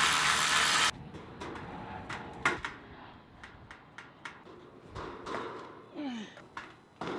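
A burst of rushing noise for about a second, then scattered knocks and clunks, with a short falling squeak near the end.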